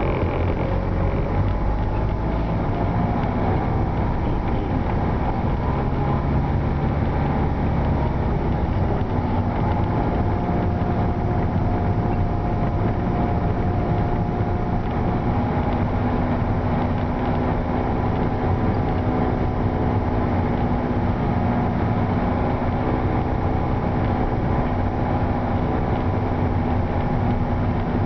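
Car engine and road noise heard from inside the cabin while driving, a steady low hum whose engine note shifts slightly as the speed changes.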